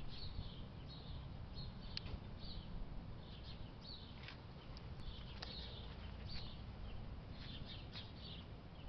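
Small birds chirping, with short high chirps coming in quick irregular clusters, over a low steady rumble.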